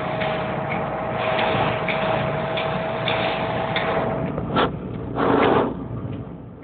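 Car driving on a wet road, heard from inside the cabin with the windscreen wipers going: a steady hiss of road noise with a light tick about every half second and a steady tone that stops about two-thirds of the way in. Two louder swells of noise come near the end, and the cabin noise then drops.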